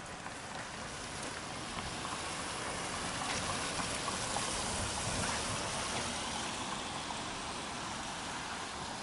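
Steady hiss of car tyres on a rain-soaked road, swelling to a peak around the middle as a car drives past and then easing off.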